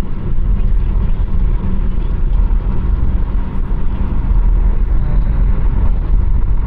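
Steady road and engine rumble of a Toyota car driving along, heard from inside the cabin.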